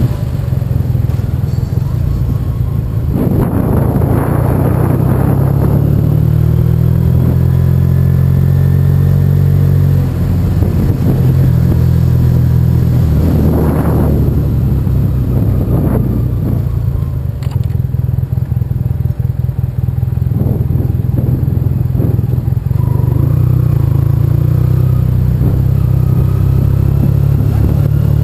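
Yamaha TDM 850 parallel-twin engine running at low town speed, its low engine note stepping up and down with throttle and gear changes. Wind noise on the microphone swells twice, about 4 and 14 seconds in.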